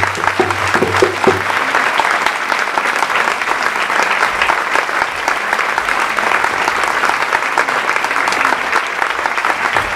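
Audience applauding steadily. In the first second and a half, a few last knocks of hand percussion and a low steady tone sound under the clapping, then stop.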